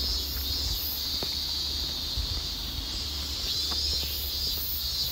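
A summer chorus of cicadas calling steadily in the forest, with a higher note pulsing about twice a second above it. Faint footsteps on a paved road tick now and then underneath.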